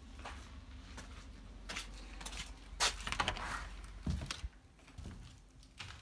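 Footsteps and door handling: a cluster of sharp clicks about halfway through and a low thump a little later as a front door is opened and walked through.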